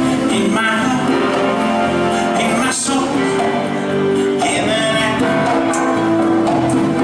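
A live band rehearsing a pop song, a male voice singing in phrases over sustained instrument chords.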